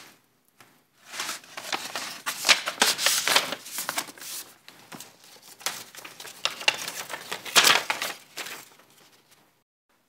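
A paper envelope being opened and a folded letter pulled out and unfolded: irregular rustling and crinkling of paper that starts about a second in and fades out near the end.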